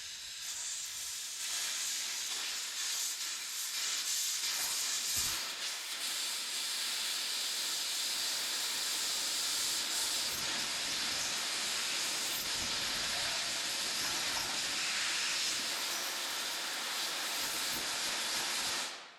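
Electric welding arc hissing and crackling steadily as a weld pass is laid into a crack, then cutting off abruptly near the end when the arc is broken.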